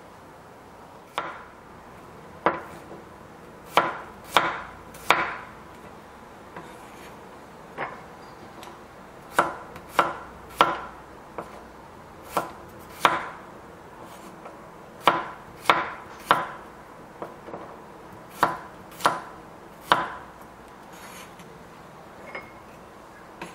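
Knife slicing peeled garlic cloves on a wooden cutting board: irregular sharp knocks of the blade striking the board, some in quick pairs, roughly one a second.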